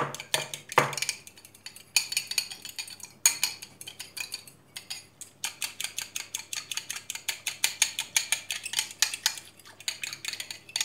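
Metal fork stirring yeast into lukewarm water in a ceramic bowl: rapid, even clinks of the tines against the bowl in spells, with a few short pauses. The yeast is being dissolved for a sauce.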